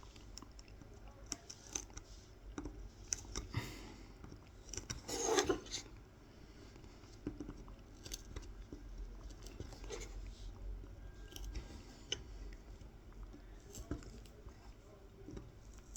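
A small knife scoring fine lines into a carved wooden honey dipper for kolrosing decoration: light, scattered scratching clicks, with one louder, longer scrape about five seconds in.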